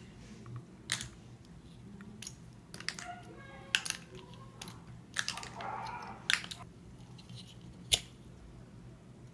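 Scattered small clicks and taps as wooden toothpicks are pulled out of a clip fan's motor, with a short scrape a little past the middle.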